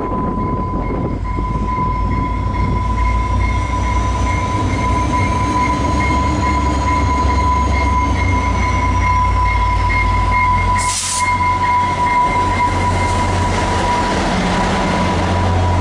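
VIA Rail F40PH-2 diesel locomotive with Budd passenger coaches pulling slowly into a station, its engine rumbling deep and steady, strongest near the end, under a steady high tone. A short, sharp hiss of air breaks in about eleven seconds in.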